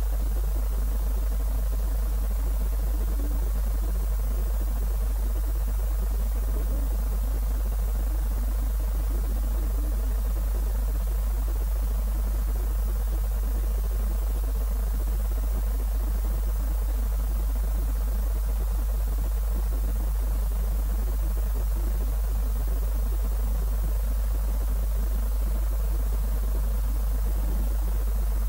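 A steady low electrical hum with an even hiss over it, unchanging throughout, with no other sound.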